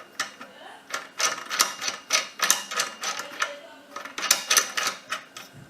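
Rapid, irregular metallic clicking and clinking as the G8 threaded part is screwed into the stand's frame.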